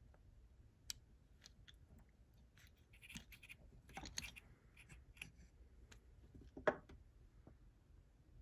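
Faint, scattered clicks and scratches of a small metal tool working at a model locomotive's plastic smokebox door as the original door darts are removed, with one sharper click about two-thirds of the way through.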